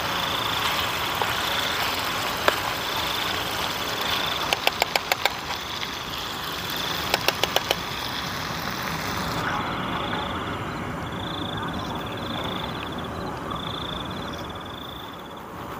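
Chicken frying in a pan on a portable gas stove, with a steady hiss and sizzle. A metal spatula taps the pan twice in quick runs of about five clicks each. The hissing thins after about nine seconds, and insects chirp in a pulsing high note behind.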